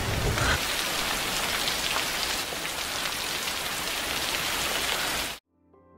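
Heavy rain pouring down in a steady hiss from a film soundtrack, cutting off suddenly about five seconds in.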